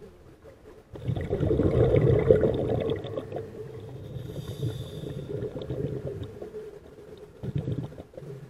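Scuba diver's exhaled bubbles burbling from the regulator as heard underwater, a loud gush about a second in that trails off, then a second shorter burst near the end.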